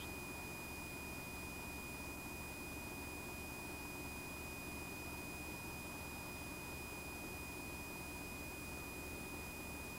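Steady hiss with one thin, high whine held at a constant pitch and a faint low hum underneath, with no distinct event: the noise floor of an old handheld camcorder recording.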